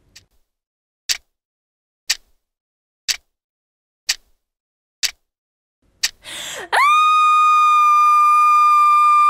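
A clock ticking once a second, six ticks, then a quick rush of breath and a woman's loud, long scream that swoops up and holds one high pitch.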